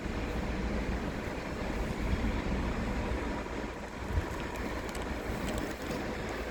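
Diesel freight locomotive running with a steady low rumble, with wind noise on the microphone.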